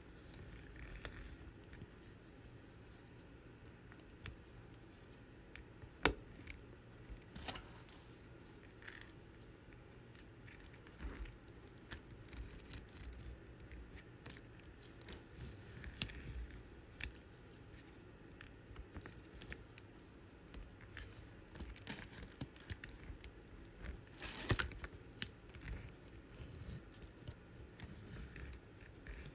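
Faint, scattered light clicks and taps of a diamond-painting drill pen picking up round drills and pressing them onto the sticky canvas. One sharper click comes about six seconds in, and a short, louder scratchy burst comes near the end.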